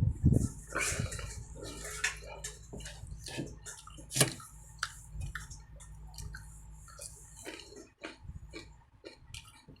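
A person eating close to the microphone: wet chewing, smacking and sharp clicking mouth sounds, irregular throughout, over a steady low hum.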